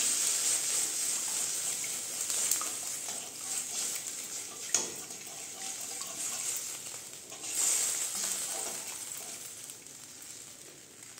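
Hot curry liquid sizzling in a metal kadai as it is stirred with a wooden spatula: hot water has just gone into a fried tomato-and-spice paste over raised heat. The hiss fades gradually, with a sharp tap about five seconds in and a brief swell of sizzling near eight seconds.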